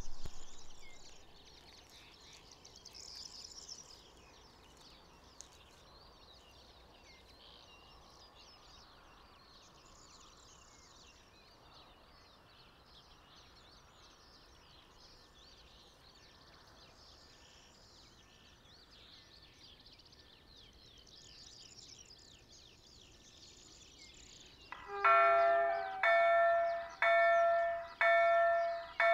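Faint bird calls over quiet countryside for most of the time. About 25 seconds in, the level crossing's electronic warning bell starts ringing, about one ringing strike a second, signalling that a train is approaching. There is a brief rush of noise in the first second.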